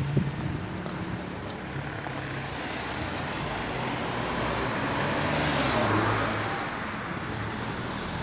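Street traffic: a car's engine and tyres passing, swelling to a peak about six seconds in and then easing off. A short knock right at the start.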